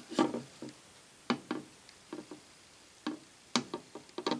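Irregular sharp metal clicks and taps of steel shift-fork arms and detent levers being handled and set into place on a Warner three-speed transmission's side cover. The loudest click comes about a quarter-second in.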